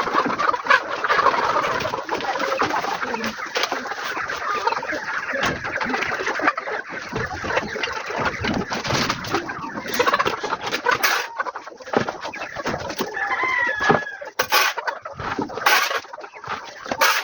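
Chickens clucking inside a deep litter poultry house, with one drawn-out call about thirteen seconds in, over steady scraping and knocking from a shovel working through the manure and wood-shaving litter.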